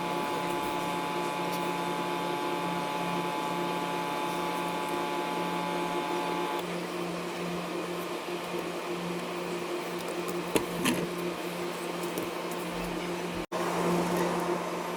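A small electric motor or fan humming steadily. Several of its higher tones stop about six and a half seconds in, leaving a lower hum, and a couple of sharp clicks come later.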